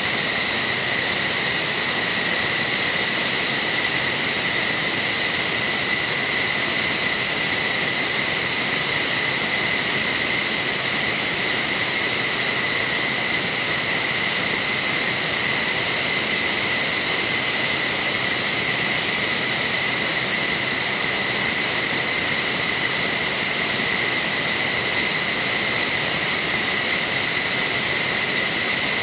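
F-15SG fighter jet running steadily during its start-up: a continuous high-pitched whine over a rushing hiss, holding the same pitch and level throughout.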